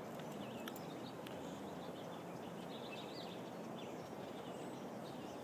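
Quiet outdoor ambience: small birds chirping now and then over a steady background hiss, with a faint click or two in the first second or so.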